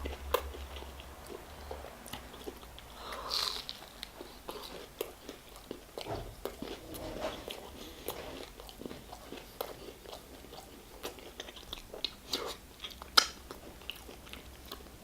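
Close-miked chewing of a fried chicken burger: soft wet crunching and mouth sounds with scattered small clicks, and a sharper click about two seconds before the end.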